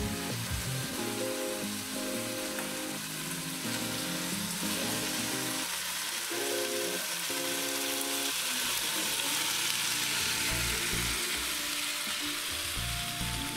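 Woodcocks sizzling in an enamelled cast-iron casserole while being flambéed with cognac, a steady frying hiss. Soft background music with held notes plays along with it.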